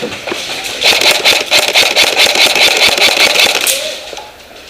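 An airsoft electric gun firing a full-auto burst of about three seconds, a rapid mechanical rattle of many shots a second.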